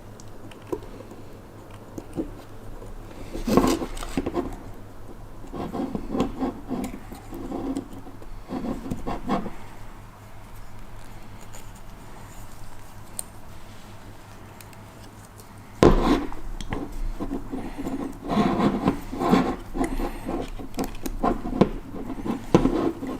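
Hands fitting a compression ring onto an engine piston: irregular light clicking and rubbing of the steel ring against the piston, with a louder knock about sixteen seconds in.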